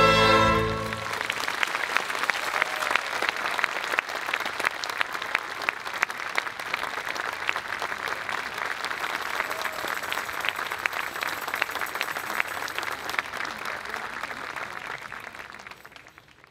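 The music's final held chord ends about a second in, then the audience applauds steadily, fading out near the end.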